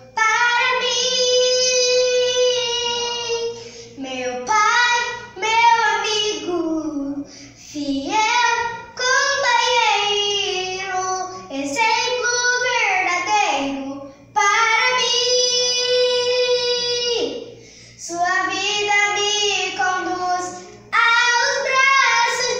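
A young girl singing unaccompanied, in short phrases with long held notes and brief pauses between them.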